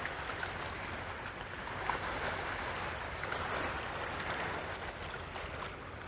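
Small waves washing and lapping onto the sandy, stony river shore in a steady swish with faint splashes, as the water drawn out by a passing lake freighter surges back in.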